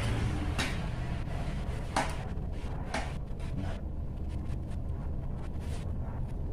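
Hands handling the frame rails and plastic brackets of a CNC foam cutter: a few light knocks and clicks, the loudest about two seconds in, then a run of small ticks and rustles.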